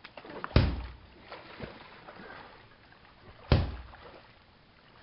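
Two loud, sharp hits about three seconds apart, the impacts of a staged fistfight in a shallow creek, with water sloshing around the fighters' legs between them.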